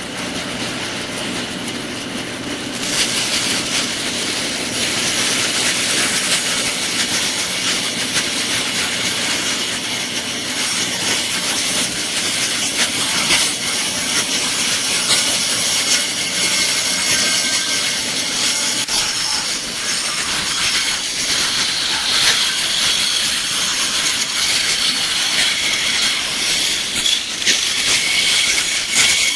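Electric power tool trimming the top of a cast resin and elk antler blank: the motor runs with a steady hum, and from about three seconds in a loud, steady hiss of cutting through the resin and antler keeps on.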